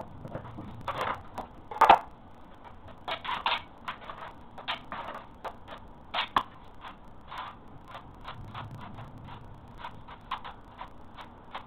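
Irregular clicks, taps and short scrapes of hand-tool work, the loudest a sharp knock about two seconds in.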